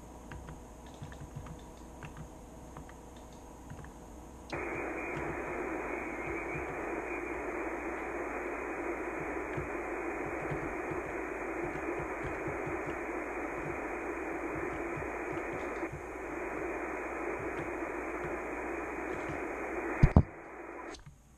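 Icom IC-7300 transceiver's speaker hissing with static on the 20 m band while it listens on single-sideband between voice-keyer CQ calls. The hiss comes in suddenly a few seconds in, cut off sharply in its top end by the receive filter, and no station answers. A loud knock near the end.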